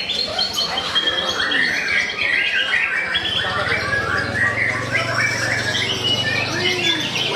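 Many caged songbirds singing at once in a dense, overlapping mix of chirps, trills and squawks. A low steady hum joins in about three seconds in.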